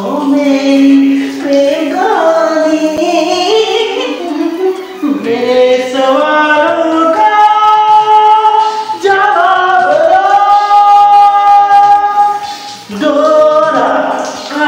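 A man singing loudly without accompaniment, in a high, strained voice, holding long notes with a wide vibrato.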